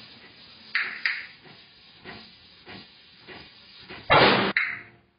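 Compressed air hissing in short blasts at a tyre changer as a tyre is worked onto its wheel: two brief hisses about a second in, a run of faint clicks, then a louder, longer blast of air near the end that cuts off sharply.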